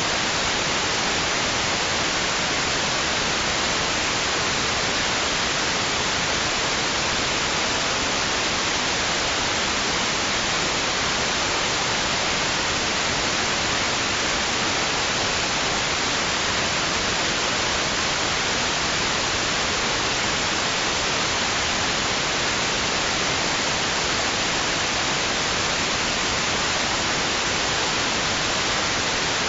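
Steady white noise: an even hiss that never changes and has no rise and fall of waves.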